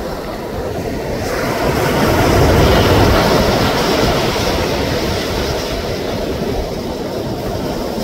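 Gulf of Mexico surf on the beach: a wave breaks and washes in. It swells about a second in, is loudest around two to three seconds, then eases to a steady wash.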